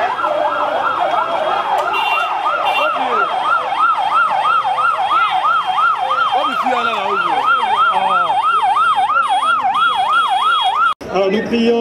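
A vehicle siren sounding a fast rising-and-falling yelp, about three cycles a second, that cuts off suddenly near the end.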